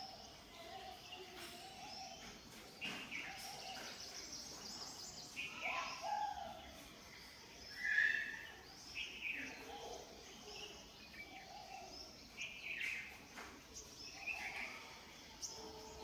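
Scattered short bird chirps and calls, many of them quick downward sweeps, over a steady outdoor background noise; the loudest call comes about halfway through.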